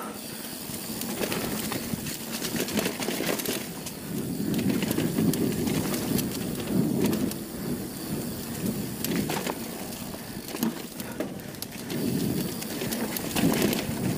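Mountain bike rolling down a dirt trail: tyres running over dirt and roots, with frequent clicks and rattles from the bike over bumps and a surging rush of wind on the microphone.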